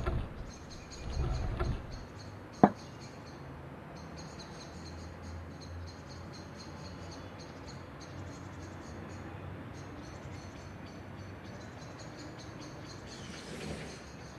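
A wooden chair is shifted on a wooden deck, scraping in the first two seconds, followed by one sharp knock a little later. After that a faint, steady chirping of insects continues.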